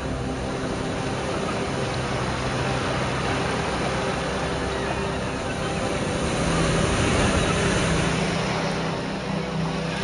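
Sea waves breaking and washing up a sandy beach, a steady rushing that swells about seven seconds in as a larger wave crashes onto the shore.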